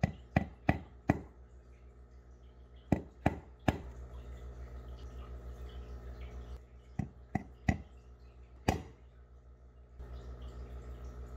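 Claw hammer tapping 5/8-inch wire brads into a wooden board: about a dozen light, sharp taps in short groups of three or four, with pauses between the groups.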